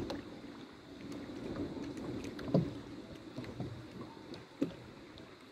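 Water lapping against a small outrigger boat, with two short knocks against the boat, about two and a half seconds in and again near the end.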